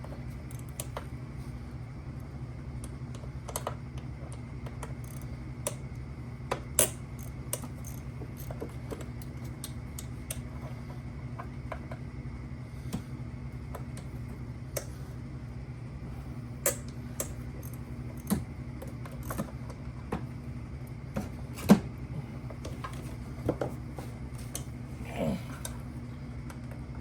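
Hand tools and metal fasteners clicking and clinking irregularly as parts come off a car engine, over a steady low hum.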